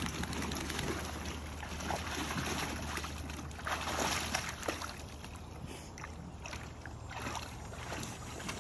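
Water sloshing and splashing in a plastic kiddie pool as a Labrador retriever wades and paws about in it, with a few louder splashes around the middle.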